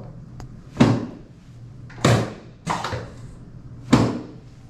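Chiropractic drop table's pelvic drop section falling under the chiropractor's thrust, four sharp clacking thumps about a second apart.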